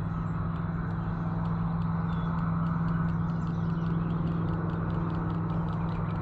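Steady low mechanical hum, with faint quick ticking above it.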